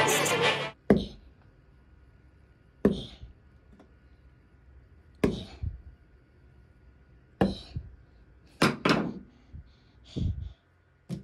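A flat-blade screwdriver jabbing and knocking against a plywood door: about eight separate sharp knocks, a couple of seconds apart at first and closer together near the end.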